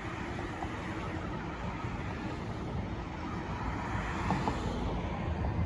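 Steady vehicle engine and road noise.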